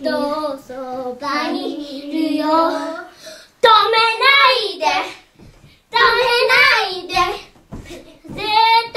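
Two children singing a song together in short sung phrases, with brief pauses between the lines.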